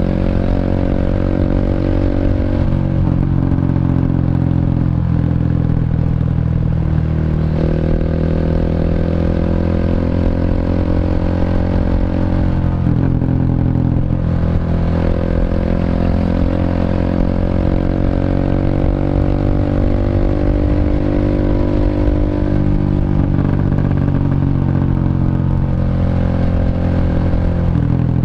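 Single-cylinder four-stroke engine of a Honda Revo underbone, bored up to 150cc, running through a CLD C7 aftermarket exhaust while riding. The engine note climbs and then dips sharply several times, as at gear changes.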